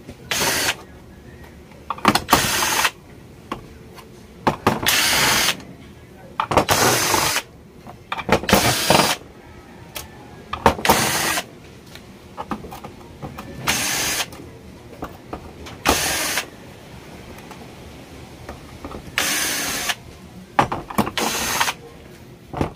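Cordless drill-driver backing out the rusted screws of a TV's rear cover, running in about ten short bursts with pauses between them.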